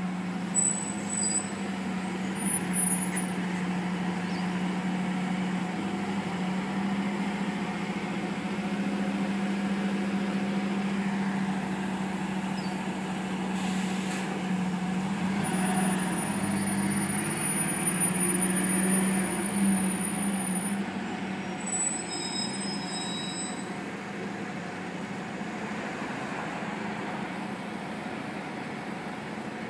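City bus engine running at a bus stop with a steady low drone, joined by thin high-pitched tones. A short air-brake hiss comes about two-thirds of the way through as the bus pulls away, and the drone then eases slightly.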